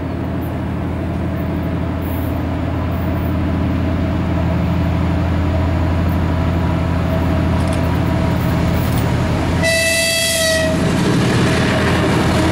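A 3TE10M three-section diesel locomotive hauling a freight train approaches, its two-stroke opposed-piston 10D100 diesel engines droning steadily and growing louder as it nears. About ten seconds in it sounds its horn in one blast lasting about a second.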